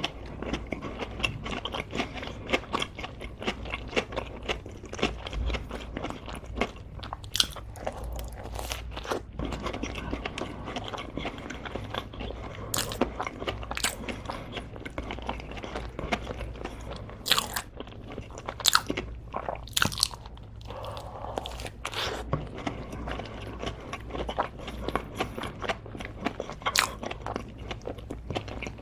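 Close-up crunchy eating: biting and chewing crisp food, a dense run of crackling crunches with a few sharper, louder cracks now and then.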